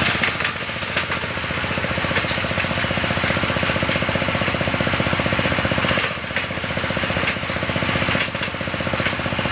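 River-stone grinding machine for making sand, running steadily: a fast, even engine beat under a continuous high hiss of grinding, with scattered sharp clicks.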